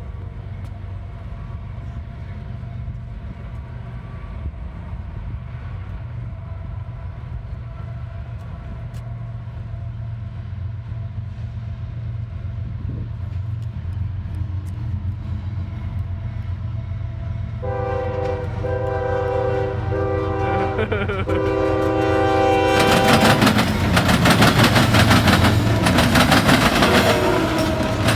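Freight train's diesel locomotives approaching, their engine rumble growing steadily louder. The locomotive horn sounds for about five seconds some two-thirds of the way in, then the train arrives with a loud rumble and clatter of wheels on the rails.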